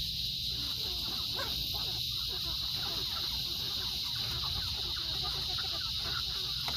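A flock of meat chickens clucking and peeping in many short, overlapping calls, over a steady high-pitched hum.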